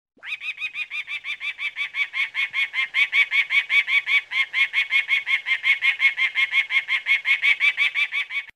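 Peregrine falcon giving its rapid 'kak-kak-kak' call: a long unbroken series of short notes, about six a second.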